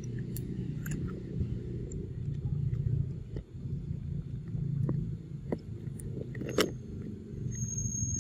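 A macaque chewing and biting mango, with scattered small wet clicks, over a steady low rumble. A sharper click comes about six and a half seconds in, and a thin high whistle starts near the end.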